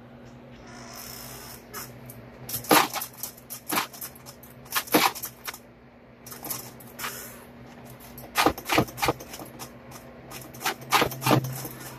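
Irregular sharp clicks and knocks, several coming in quick clusters, over a faint low steady hum.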